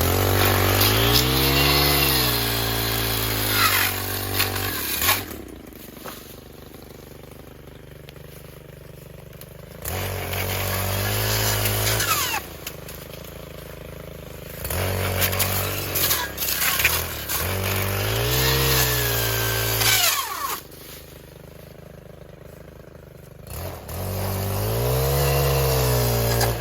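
Brush cutter with a chainsaw-tooth blade cutting into a tree. The engine is revved up four times, each for several seconds, and drops back to idle in between.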